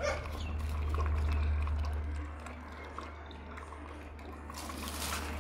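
A litter of puppies lapping milk from a shared dish: a wet, splashing liquid sound, loudest over the first two seconds, over a steady low rumble.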